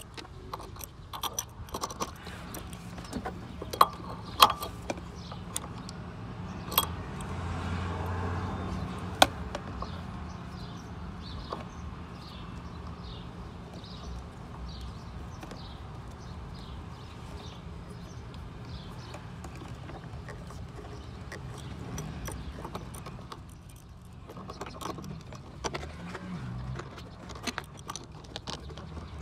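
Metal hand tools clinking and tapping against metal fittings, with a sharp clink now and then in the first several seconds, then a long run of small, evenly spaced clicks like a ratchet being worked as the fuel pressure gauge is threaded into the regulator port.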